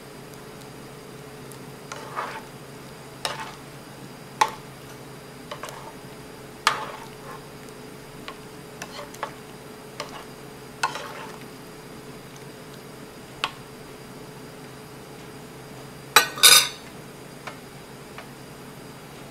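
Metal spoon knocking and scraping against the inside of a pot of soup as it is stirred, in a dozen or so separate clinks. About three seconds before the end comes a louder double clatter as the spoon is put down.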